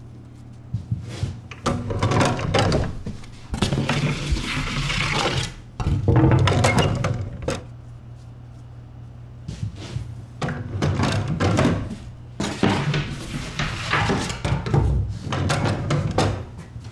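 Metal oven door of a wood-fired brick oven being worked and a wooden peel knocking and scraping as a loaf is loaded onto the hearth, in two spells of clattering over a steady low hum.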